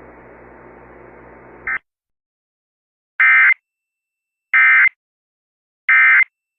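Emergency Alert System end-of-message tones: three short, identical buzzy data bursts about 1.3 seconds apart, signalling the end of the flash flood warning. Before them, faint AM radio hiss cuts off about two seconds in.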